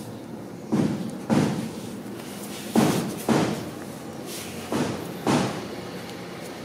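Dull thuds coming in pairs, the two about half a second apart and a pair roughly every two seconds, over a steady low hum.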